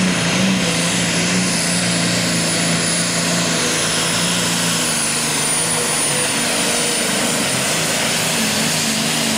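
Pulling tractor's diesel engine running flat out under load as it drags the weight sled: a loud, steady drone at a constant pitch with heavy rushing noise over it.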